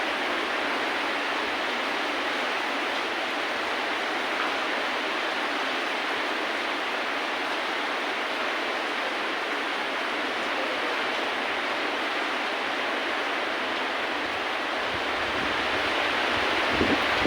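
Steady hiss of heavy rainfall. Near the end a low rumble comes in, with a couple of brief thumps.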